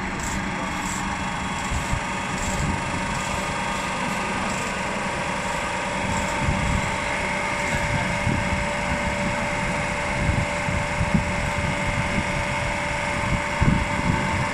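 Hydraulic pump running steadily, building pressure in a hydraulic bolt tensioner to stretch a flange stud: a constant mechanical hum with a steady whine, and a few knocks in the second half.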